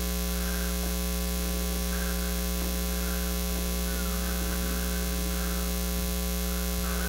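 Steady electrical mains hum from the microphone and sound system: a low, unchanging buzz with a stack of evenly spaced overtones.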